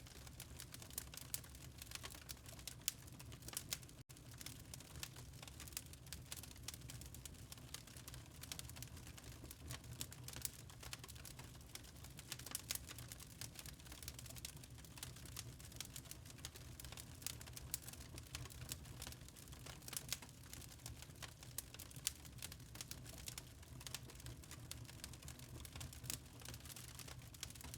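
Wood fire crackling in a fireplace: a steady stream of small irregular pops and snaps over a low, even rumble.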